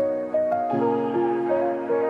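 Background music: a slow, soft instrumental melody of sustained notes changing every half second or so.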